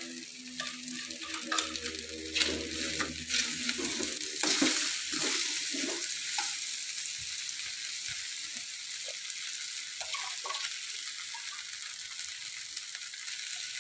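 Diced tempeh and small meatballs sizzling steadily in an aluminium wok while being stir-fried, with a metal ladle intermittently scraping and clicking against the pan, most busily in the first few seconds and again about ten seconds in.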